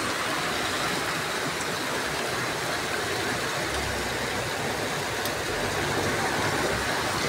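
Muddy rainwater runoff rushing along a street in a heavy downpour, a steady rushing noise mixed with rain. A low rumble joins about halfway through.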